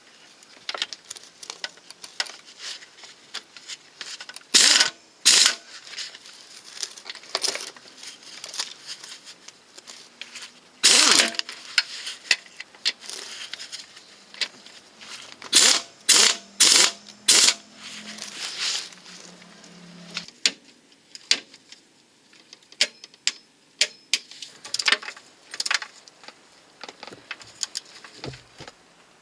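Socket ratchet work on the gearbox mounting bolts: short rasping ratchet bursts and metallic clinks of tools and bolts at irregular intervals.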